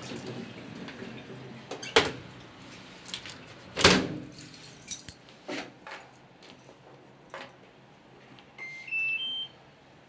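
A few knocks and clatters, the loudest about four seconds in. Near the end, an LG TurboDrum top-loading washing machine's control panel plays a short power-on chime of three rising beeps.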